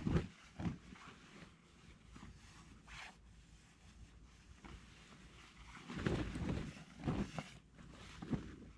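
Swedish military shelter half (Zeltbahn) being shaken out and handled, its fabric rustling and flapping in bursts. The rustling is loudest just after the start and again from about six seconds in, with a quieter stretch between.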